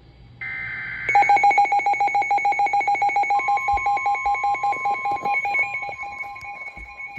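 A NOAA Weather Radio SAME header burst (a second of screeching digital data tones) sets off a Midland WR300 weather radio's alert alarm. The alarm is a rapid, even pulsing of high beeps. About three seconds in, a steady single-pitch warning alarm tone joins in under the beeping. Together they signal an incoming severe weather warning.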